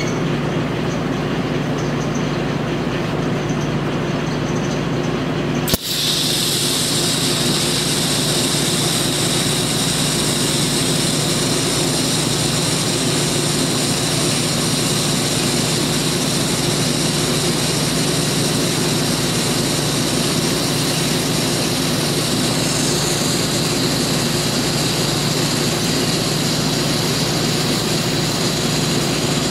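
TIG welding arc: a sharp click about six seconds in as the arc strikes, then a steady high hiss of the arc burning for the rest. A steady low machine hum runs underneath throughout.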